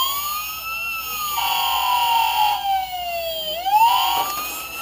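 A Paw Patrol toy fire truck plays its electronic siren sound effect: a wailing tone that climbs in pitch, falls slowly, then climbs again near the end. About a second and a half in, a second buzzy tone plays over it for about a second.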